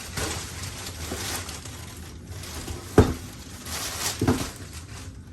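Packaging rustling as a motorcycle exhaust is unboxed, with a sharp knock about three seconds in and another just after four.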